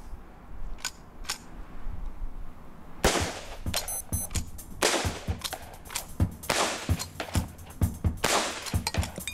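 Henry lever-action repeating rifle fired in quick succession: four shots starting about three seconds in, roughly one every one and a half to two seconds, with the lever worked between them.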